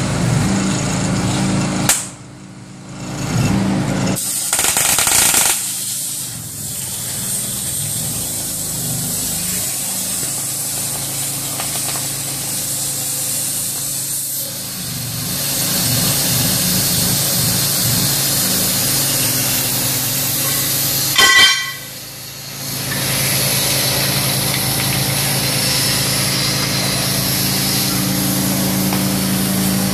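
Steady hiss and hum of a CNC cutting torch cutting steel plate. The sound drops away suddenly twice, about two seconds in and again past twenty seconds, with a sharp click just before the second drop.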